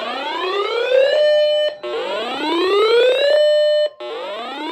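Weather alert radio's alarm siren sounding for an incoming warning, here a tornado warning: a loud electronic whoop that climbs in pitch for about a second and a half, holds a steady tone briefly and cuts off. It repeats three times.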